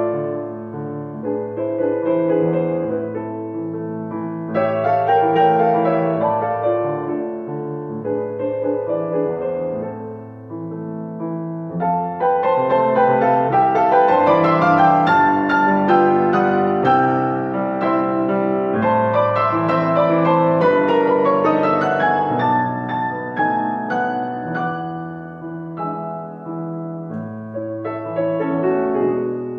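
Grand piano played solo in a classical recital piece: a softer, sparser passage of chords, growing louder and busier about twelve seconds in, with rising and falling runs, then easing off near the end.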